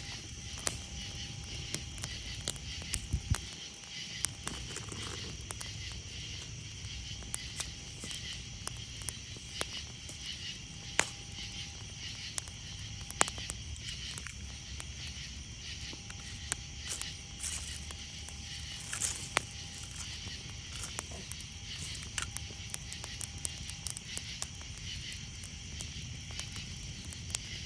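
Wood campfire crackling, with irregular sharp pops, over a steady chorus of night insects calling.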